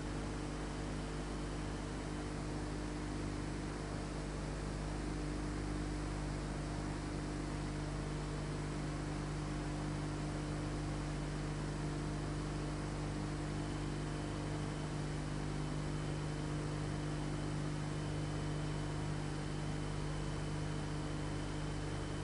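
Steady electrical hum with an even hiss; no chopping strokes stand out.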